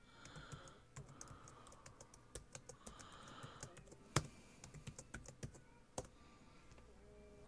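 Computer keyboard typing: a string of faint key clicks as a short command is typed, with two louder keystrokes about four and six seconds in.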